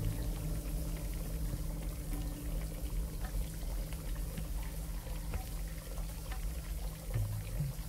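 Water pouring onto an open umbrella and splattering off it into a full bathtub, a steady hiss with scattered drips. A steady low drone runs underneath.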